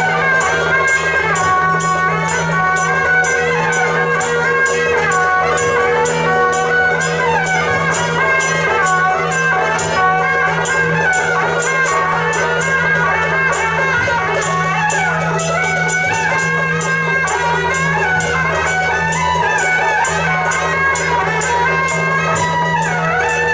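Loud traditional Taiwanese temple procession music: a reedy wind melody gliding over a steady low drone, driven by a fast, even percussion beat of several strikes a second.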